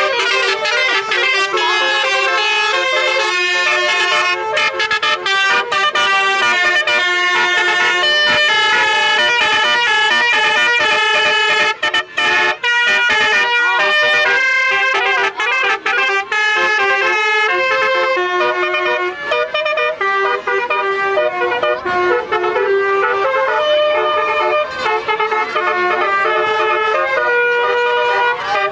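Telolet horn playing a long tune: several horn notes sound together and step from pitch to pitch, with brief breaks between phrases.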